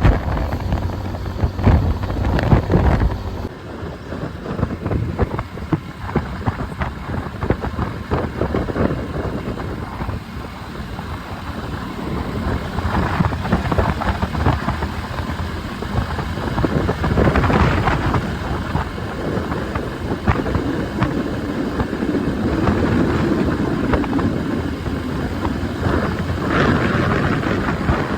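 Wind buffeting the microphone outdoors, a gusting rumble that rises and falls throughout.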